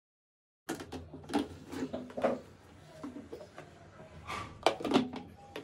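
Black plastic commode bucket and its lid being handled and lifted out of the chair frame: a run of clacks, knocks and rattles that begins a little under a second in, loudest near the end.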